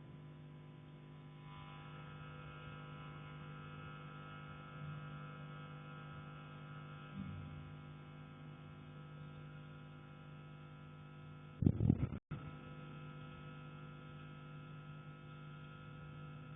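Steady electrical hum, then about twelve seconds in a short burst of several loud knocks on a heating pipe, struck from the attic and carried through the pipe; the sound cuts out for an instant right after.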